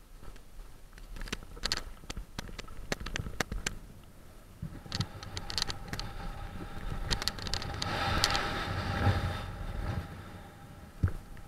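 Paraglider launch: sharp crunches and clicks of the pilot's run over loose gravel and stones, mixed with gear rattling. Then wind rushing over the microphone swells as he gets airborne, strongest near the end.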